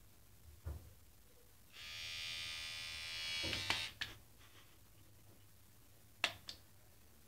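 Electric shaver buzzing for about two seconds, getting louder before it stops. A few short sharp knocks come before, during and after it.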